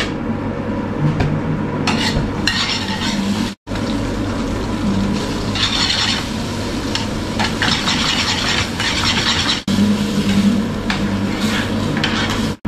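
Food sizzling in a small frying pan on a gas burner while a spoon stirs and scrapes it, over a steady low hum. The sound drops out for a moment twice.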